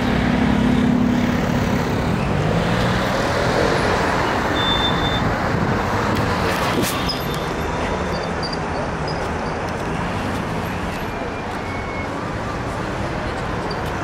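Steady road traffic noise from cars passing on the bridge and riverside road.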